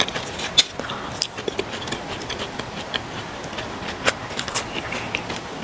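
Close-miked eating sounds of French fries being chewed: scattered small crisp clicks and soft crunches.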